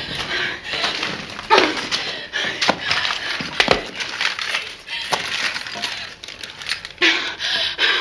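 Sounds of a violent struggle: a run of sharp knocks and thuds with clinking and crashing as things are knocked over.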